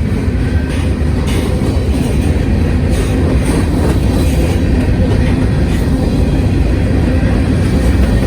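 CSX mixed freight train rolling past at track speed: a steady rumble of steel wheels on the rails, with a few irregular clicks as wheels cross rail joints.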